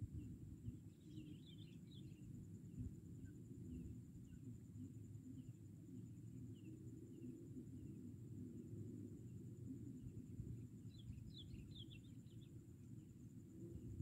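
Faint open-field ambience: a low steady rumble under short high chirps that repeat about twice a second. Two brief flurries of brighter chirping come about a second in and again near the end.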